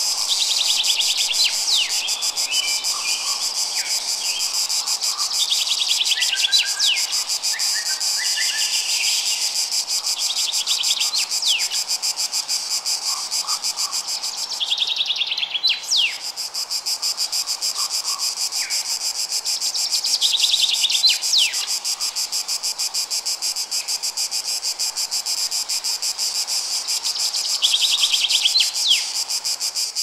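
Steady chorus of chirping insects, a fast-pulsing high trill, with scattered short bird chirps; the trill drops out briefly about halfway through.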